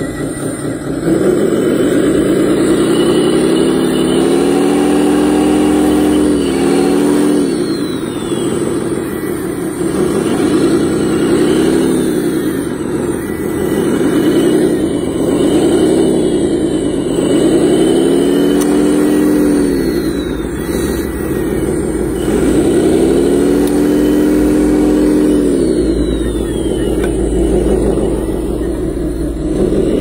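Motors of a 1:8 scale hydraulic RC wheel loader running. Their pitch rises and falls in repeated swells every second or two as the machine is driven and its bucket pushes dirt.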